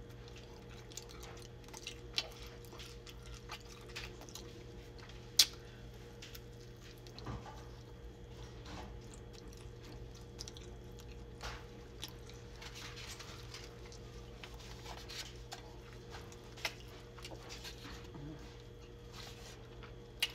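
Close-up mouth sounds of chicken being bitten and chewed: wet smacks and scattered sharp clicks, one much louder about five seconds in. A faint steady hum runs underneath.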